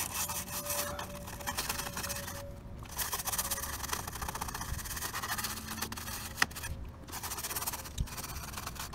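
Small detail brush scrubbing a car's grille emblem wet with cleaner, in quick back-and-forth strokes, pausing briefly twice.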